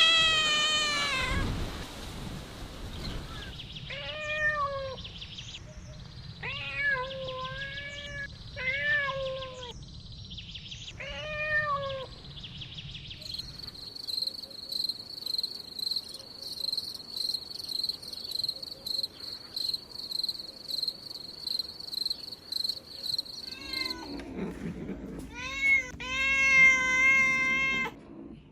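Kitten meowing over and over in short, high, rising-and-falling mews, with a few held longer near the end. In the middle, for about ten seconds, a steady high-pitched chirping pulses several times a second in place of the mews.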